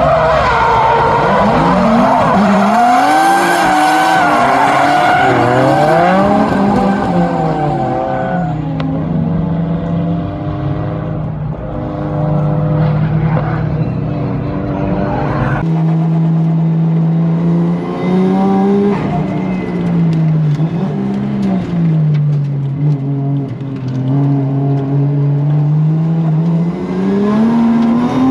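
Drift cars sliding in tandem, their engines revving up and down hard with tyre squeal. After about eight seconds one engine holds a steady high rev for long stretches, dipping and climbing again a few times.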